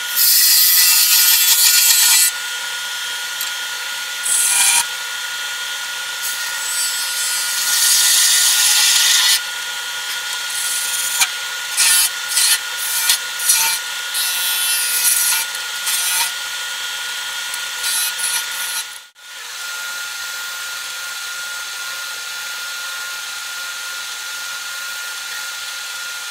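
Wood lathe running with a steady whine while a turning chisel cuts the spinning cherry-wood spindle, making bursts of hissing shavings. First come a few longer cuts, then a run of short quick ones. After a brief break about two-thirds in, the lathe runs on alone without cutting.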